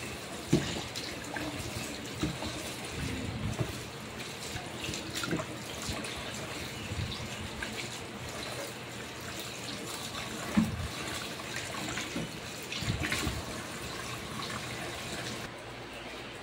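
Kitchen faucet running into a stainless-steel sink while water spinach is rinsed by hand under the stream, with a few knocks. The water sound cuts off near the end.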